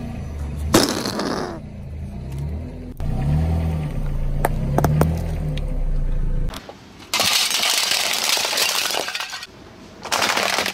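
A car tyre crushing a run of objects. A whoopee cushion being squashed gives a long, low, wavering raspberry. Later comes a stretch of dense crackling crunch, and near the end brittle plastic toy parts crack and break under the wheel.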